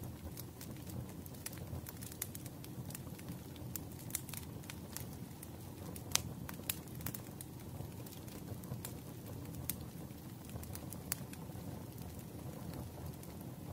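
Firewood crackling in a fire: a steady low bed of burning sound with frequent sharp snaps and pops, a few of them louder than the rest.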